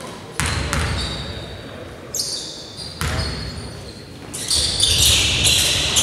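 Basketball bouncing on a hardwood gym floor, four sudden bounces in the first three seconds. From about four and a half seconds in, a burst of sneaker squeaks on the court as live play breaks out.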